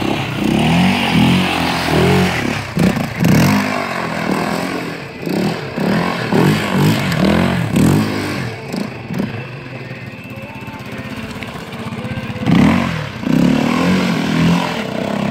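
Yamaha Raptor 700R ATV's single-cylinder four-stroke engine revving hard under load as it climbs a dirt hill, the pitch surging up and down again and again with the throttle. It eases off for a few seconds after the middle, then revs up again near the end.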